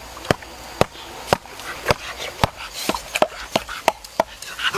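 Crisp chewing crunches on hard food, about eleven sharp cracks coming roughly two to three a second, unevenly spaced.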